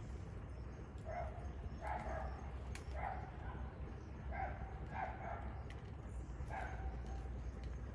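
An animal giving short barking calls, about seven of them at irregular intervals of roughly a second, over a steady low rumble.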